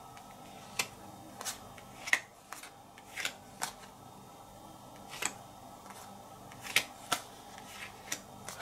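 Board-game cards being laid down and slid onto piles on a table one at a time: about a dozen light slaps and clicks at irregular intervals.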